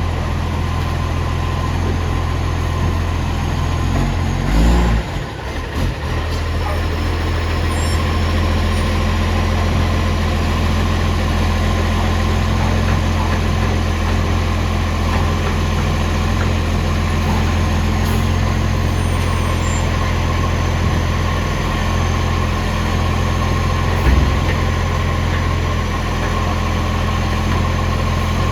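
Bus engine idling steadily with a loud exhaust leak, the note briefly wavering about five seconds in and a short thump near the end.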